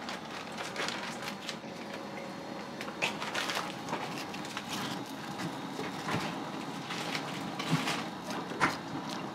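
Restaurant kitchen work: irregular light clicks and knocks of utensils and dishes over a steady background hum, with one sharper knock near the end.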